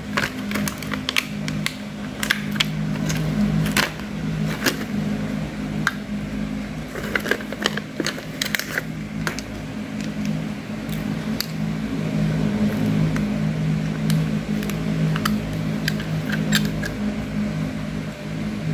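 Plastic being handled: crackles and sharp clicks of blister-pack packaging being pulled open and of a small plastic door alarm's casing being worked, scattered irregularly over a steady low hum.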